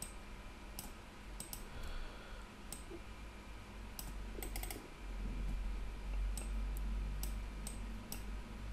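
Computer mouse clicking: a series of short sharp clicks, including a quick run of several about four and a half seconds in, over a steady low hum.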